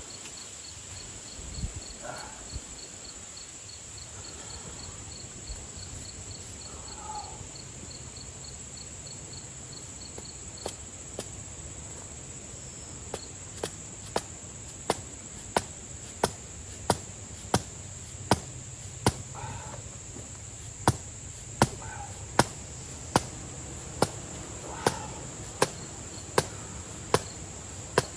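Hammer blows on steel rebar, driving it into the ground to prop up fallen gravestones. A couple of strikes come about 11 seconds in, then a steady run of about three blows every two seconds. Insects drone steadily throughout, and a cricket chirps rapidly until the hammering settles in.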